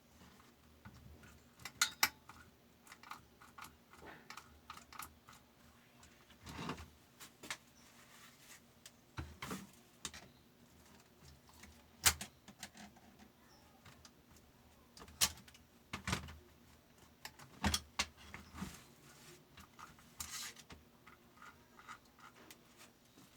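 Small metal parts clinking and tapping as they are handled, in irregular sharp clicks with a few louder knocks.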